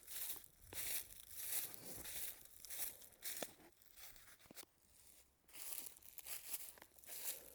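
Footsteps crunching and rustling through dry fallen leaves on a trail, about one or two steps a second, with a short pause a little past halfway before the steps resume.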